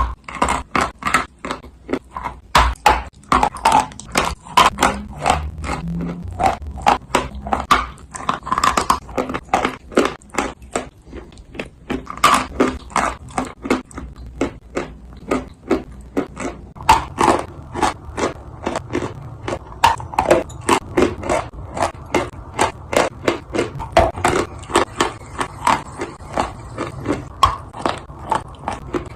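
Dry clay being bitten and chewed: a steady run of sharp crunches, several a second.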